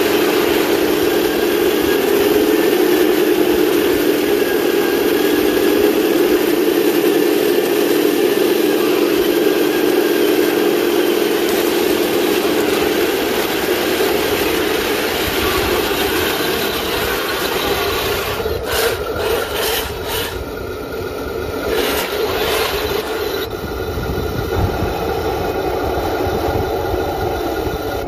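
1/16-scale RC model tanks driving in a column: a steady mechanical drone of their drive gearing, tracks and sound-unit engine noise, strongest in the first half and then fading into a rougher, more uneven rumble.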